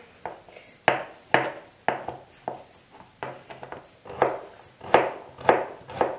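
Kitchen knife chopping raw carrot sticks by hand, the blade knocking on a plastic cutting board about two times a second, with a short ring after each cut.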